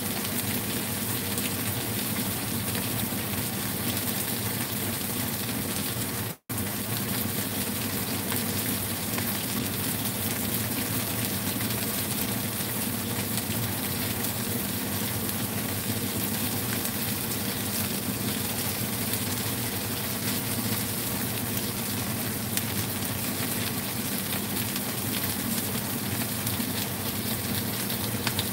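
Pieces of mayao fish frying in a little oil in a nonstick wok, a steady sizzle. The sound cuts out for an instant about six seconds in.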